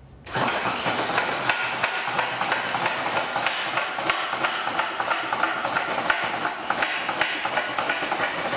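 A power cold-cutting tool starts abruptly and runs, cutting metal with a steady noise full of rapid clicking.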